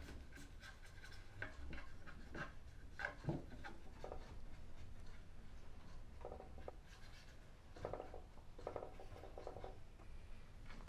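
Small paintbrush stroking liquid finish onto carved wood in soft, scratchy strokes, with scattered light clicks and taps.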